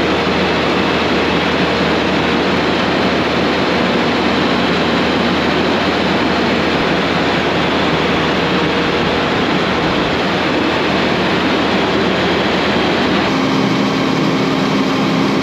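A tractor's diesel engine running steadily, with a faint hum in its noise; near the end its tone shifts and a new steady note comes in.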